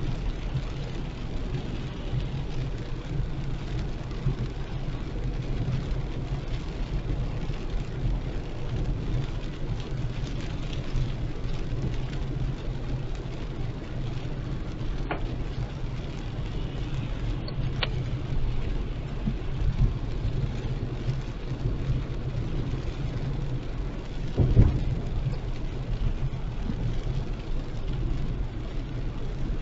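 Car driving in heavy rain: a steady low rumble of engine and tyres on the wet road under the hiss of rain on the car. Two faint ticks come near the middle and a single thump near the end.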